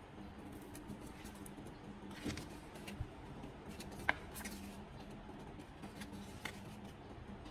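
A few faint clicks and taps over a low steady hum, with one sharper click that rings briefly about four seconds in.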